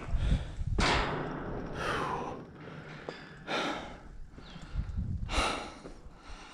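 A man breathing hard, about four long heavy breaths, out of breath from climbing a long flight of steel stairs. A few low thumps come near the start.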